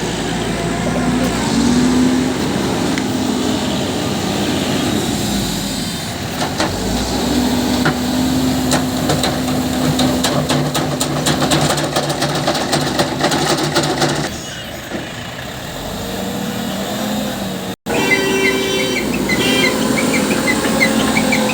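Diesel engine of road-construction machinery running steadily under load, its sound shifting about two-thirds of the way through and cutting out for an instant shortly after.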